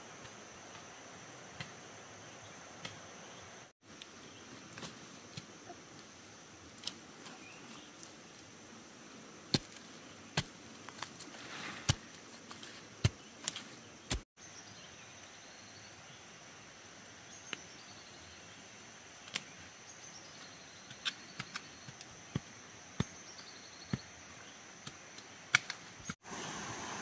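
Insects droning steadily at a high pitch, with scattered sharp knocks, several close together in the middle and again near the end.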